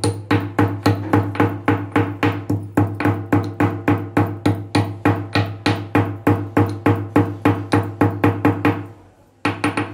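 Marble pestle pounding cardamom pods in a marble mortar: a steady rhythm of hard knocks, about four strikes a second. The pounding stops about nine seconds in, then a few more strikes come just before the end.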